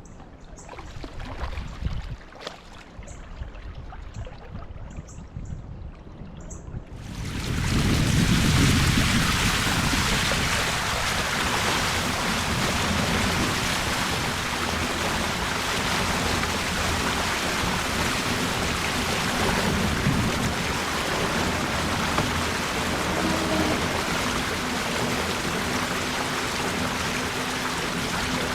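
Steady rush of flowing river water, such as a riffle or small rapid, starting abruptly about seven seconds in. Before that, a quieter stretch with a few faint knocks.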